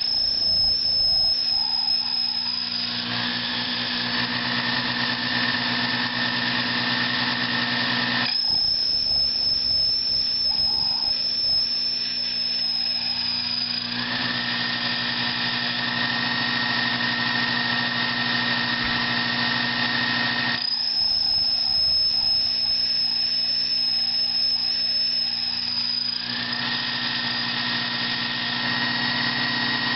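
Metal lathe running and cutting a Venturi sleeve, a steady motor hum with a high whine from the cut. The whine switches between a higher and a lower pitch every five or six seconds.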